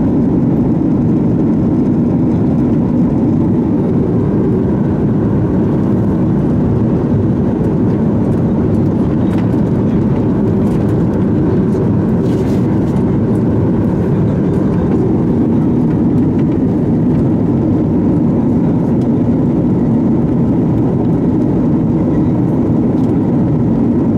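Steady cabin roar inside a Boeing 737 MAX 8 in flight, from its CFM LEAP-1B engines and the air rushing past the fuselage, heard from a window seat over the wing.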